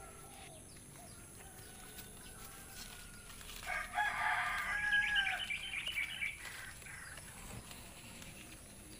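A rooster crowing once, loudly, about four seconds in, with fainter crowing from farther off before it.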